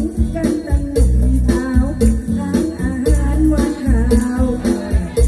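Live song amplified over a PA: a woman singing to a backing band with a steady bass beat, guitar and shaken percussion.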